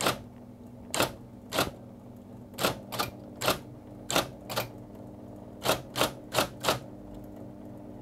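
Electric golfball typewriter with a Diplomat 72 type ball typing out a line: about a dozen sharp keystroke clacks at an uneven pace, some in quick runs, over the steady hum of its running motor.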